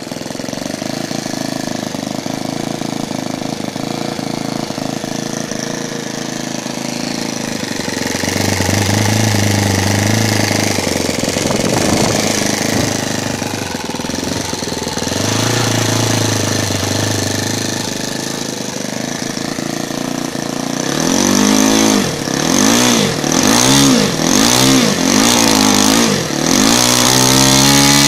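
Model aircraft engine running, its carburettor mixture metered by a solenoid pulsing at 25 Hz in place of the low-speed needle. It runs steadily at first. About two-thirds of the way through it is revved up and down six times in quick succession, each time picking up cleanly on the throttle, and it ends on a high rev.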